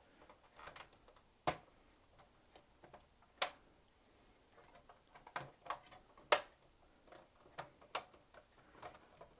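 Plastic clips on an Xbox 360's side vent cover clicking as they are pried loose by hand; each click is a clip releasing. Scattered sharp clicks, a second or two apart, the loudest about six seconds in.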